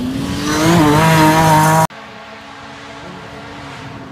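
Rally car engine at high revs, loud, its pitch climbing as it accelerates, cut off abruptly about two seconds in. After the cut, a quieter engine hums steadily in the distance.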